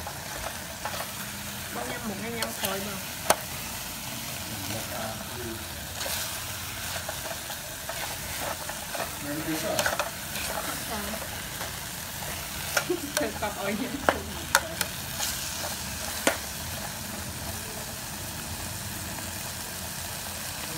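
Metal spoon stirring a wet mix of mushrooms, spinach and minced meat in a pan over a steady sizzle, with sharp scrapes and taps of the spoon against the pan in bursts. Near the end the stirring stops and only the sizzling goes on.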